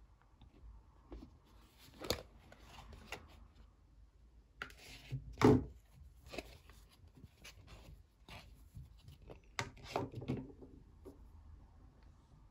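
Hands handling a hard plastic Rainbocorns toy egg, opening it and lifting out a plush toy: scattered clicks, taps and rustles, the loudest a knock about halfway through, with a cluster of clicks near the end.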